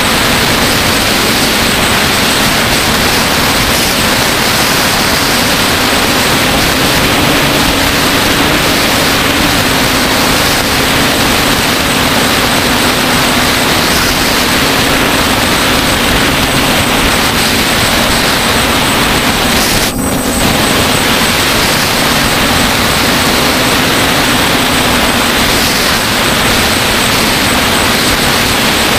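The six electric motors and propellers of a DJI Flamewheel F550 hexacopter in flight, heard from its onboard GoPro as a loud, steady buzz and rush of air. Its pitch wavers slightly as the motors adjust, and the sound dips briefly about two-thirds of the way through.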